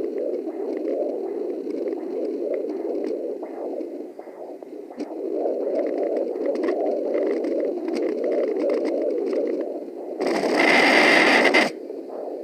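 Home fetal doppler's speaker giving a pulsing whoosh, with scattered crackles of the probe on the skin; the uploader wonders whether the whoosh is the placenta. About ten seconds in, a louder burst of scraping static lasts a second and a half.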